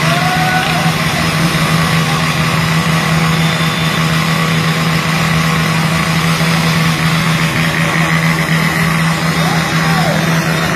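Motorcycle engine running steadily at idle, a continuous even hum.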